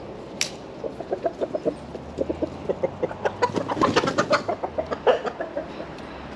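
Chickens clucking in a rapid run of short calls that builds to a loud flurry with wing flapping about halfway through: alarm clucking from a hen flushed by a dog.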